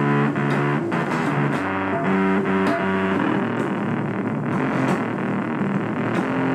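Music with a distorted electric guitar and bass playing sustained, changing notes over a steady beat.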